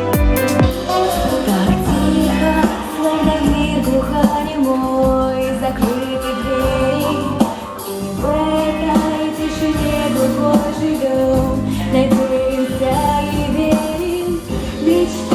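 Pop-style song: a singer's melody over a loud instrumental accompaniment.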